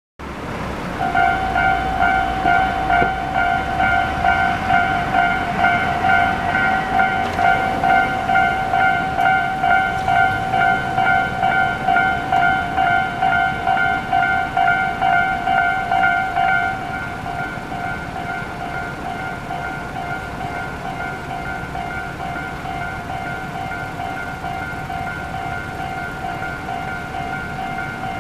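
Japanese railway level crossing warning bell ringing in a steady two-tone clang, about two strokes a second, signalling an approaching train. It drops to a quieter level about two-thirds of the way through and keeps ringing.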